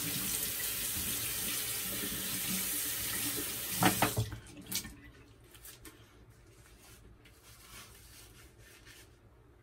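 Tap water running steadily into a bathroom sink, shut off about four seconds in. After that come faint rubbing sounds of shaving lather being worked into a beard by hand.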